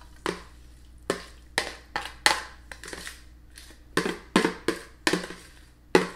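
Metal spoon scraping and knocking against a mixing bowl and a ceramic casserole dish while squash casserole mixture is scooped out, with wet plops of the mixture landing. About ten sharp clinks come at irregular intervals.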